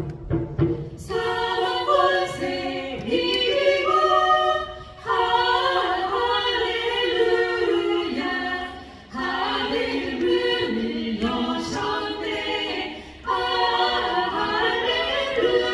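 A cappella vocal group singing a Korean Easter hymn medley in close harmony, several voices and no instruments, in phrases broken by short breaths about every four seconds.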